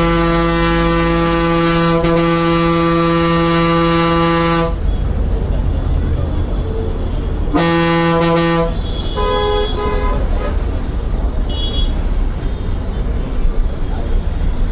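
A deep vehicle horn held for about four and a half seconds, then blown again for about a second. Fainter, higher-pitched horns from other traffic follow, over the low running of the bus's engine.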